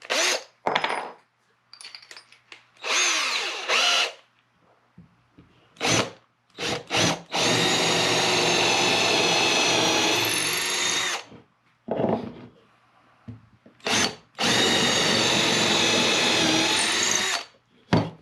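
Power drill boring a pilot hole for a wormwood screw chuck into a block of spalted willow oak: a few short bursts, then two long steady runs of the motor, about four and three seconds each.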